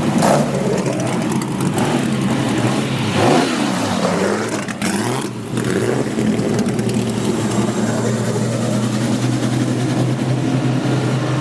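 Racing car engines passing at speed and revving, their pitch sweeping up and down as they go by. After about six seconds the engine noise settles into a steady drone.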